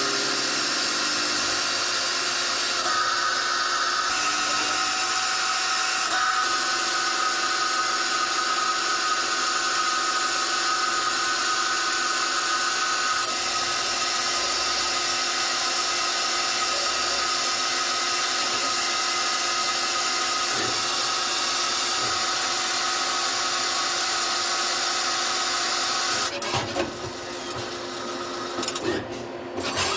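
Citizen L12 Swiss-type CNC lathe running, a steady machine whine over a hiss, its tones shifting in pitch a few times. Near the end the sound drops and turns uneven.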